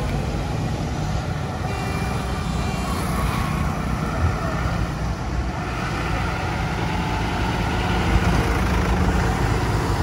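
Road traffic passing close by: heavy trucks and smaller vehicles driving past in a steady stream, a continuous rumble of engines and tyre noise.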